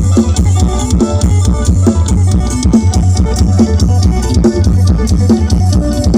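Isan dance music played live by a rot hae sound-truck band and pushed through big loudspeakers: a fast, steady drum-kit beat with heavy bass under a plucked string lead.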